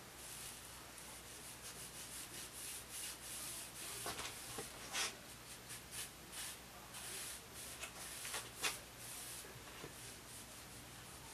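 Faint, repeated rubbing strokes on a rattan bow as a dark stain of teak oil and bitumen of Judea is worked into its inner face, with a few light taps about four to five seconds in and again near nine seconds.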